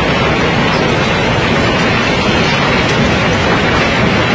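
River pebbles pouring and tumbling down a wooden chute from a large heap, a loud, steady, dense rattling rush.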